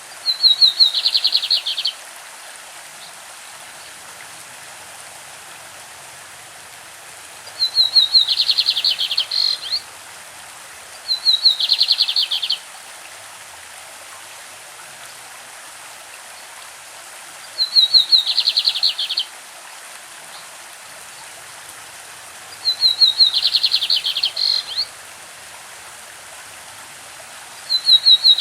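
Lined seedeater (bigodinho) singing its classic song: six short phrases, each a quick run of rapid, high repeated notes lasting about a second and a half, several seconds apart. Under the song runs the steady rush of a stream.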